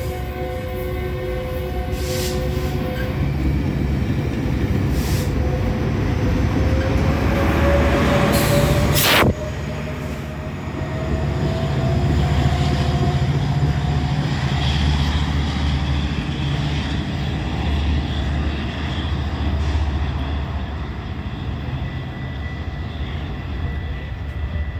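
Metrolink commuter train running with a steady low rumble. A few held tones sound near the start, and a tone rises slowly in pitch over several seconds. A single sharp click comes about nine seconds in.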